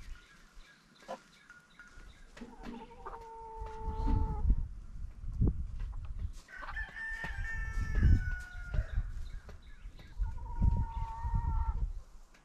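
Roosters crowing: three crows, each a second or two long, the middle one higher-pitched and the longest.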